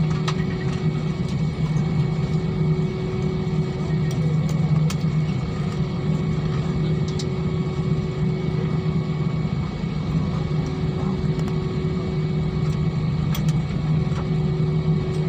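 Cabin noise inside an Airbus A320-family airliner during its landing roll on the runway: a steady low hum from the engines and the rolling aircraft, with a few faint clicks.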